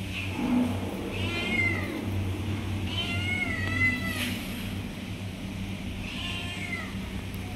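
Kitten meowing three times, begging for food. The first and last calls fall in pitch, and the middle one is the longest and wavers.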